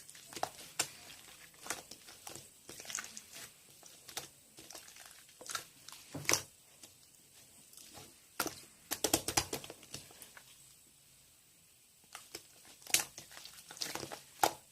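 Irregular crinkling and crackling clicks, like material being handled close to the microphone, with a quick dense run of them about nine seconds in.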